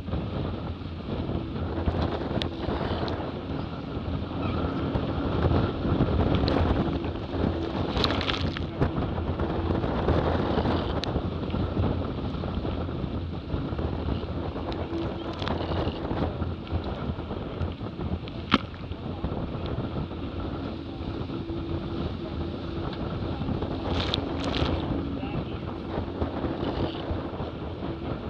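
Wind buffeting the microphone and water rushing past the hulls of a Hobie 20 catamaran sailing at speed, with a steady low hum that comes and goes and a few sharp clicks from the boat.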